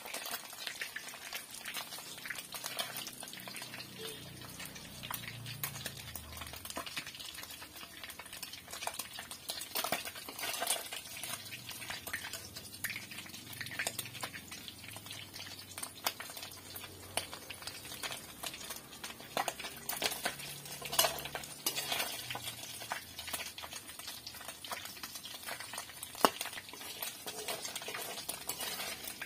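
A perforated metal skimmer scraping and clinking against a metal wok as fried food is stirred and scooped out, with many short sharp clicks over a steady sizzle of hot oil.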